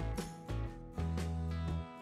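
Background music: plucked notes over a steady bass line.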